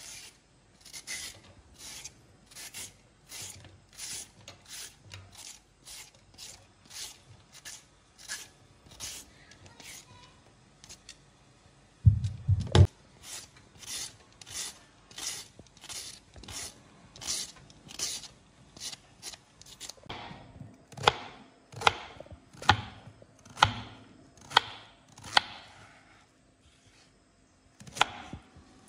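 A raw carrot scraped lengthwise again and again with a plastic grater to cut grooves along it, about two rasping strokes a second, with one heavy knock partway through. Later come sharper knife cuts through the carrot onto a wooden chopping board.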